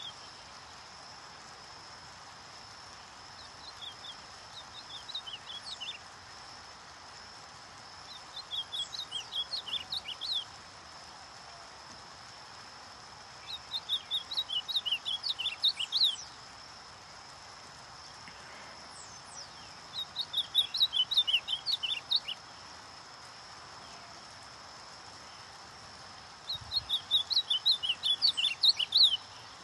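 Ultramarine grosbeak (azulão) singing five short phrases a few seconds apart, each two to three seconds of quick, sharp whistled notes. A steady high hum runs underneath.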